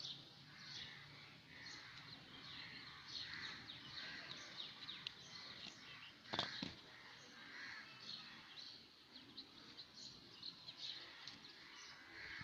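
Birds calling and chirping faintly in the background, many short calls. There is one sharp click about six and a half seconds in.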